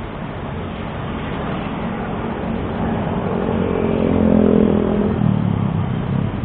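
A motor vehicle's engine passing close by on the street, growing louder to a peak about four seconds in, then dropping in pitch as it moves away.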